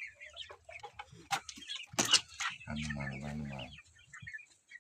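A flock of chickens clucking with many short calls, and a louder sharp squawk about two seconds in. A low steady hum lasting about a second follows soon after.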